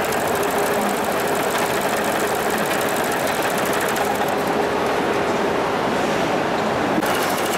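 Heavy-duty 81500CZ overedging sewing machine running at speed, a fast, even stitching clatter as it sews a thick rope onto a net border.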